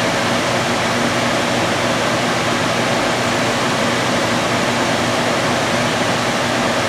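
Steady rushing hiss of a lampworking bench torch's flame as glass is melted in it, with a faint low hum beneath.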